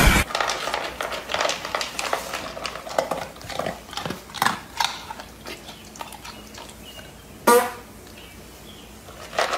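A husky eating dry food from a food bowl: irregular crunching and clicks of kibble and of the bowl, several a second at first and thinning out, with one louder brief sound about seven and a half seconds in.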